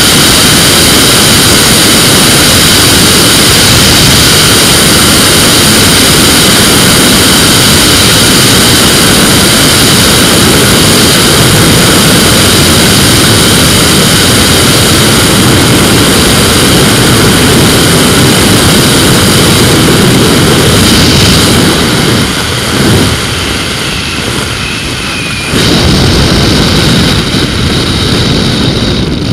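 Flexwing microlight's engine and propeller running, with airflow rushing over the onboard microphone during the approach and landing. The sound drops quieter about 22 s in and comes back up sharply near 26 s as the aircraft reaches the runway.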